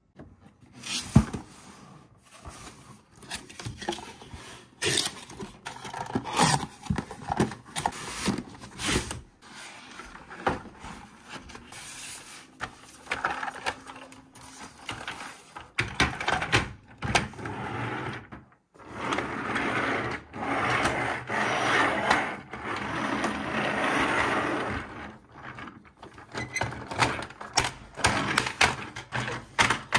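Hard plastic toy parts clicking and knocking as a Paw Patroller toy truck is handled and its ramp folded out, with longer stretches of cardboard and paper packaging scraping and rustling in the middle.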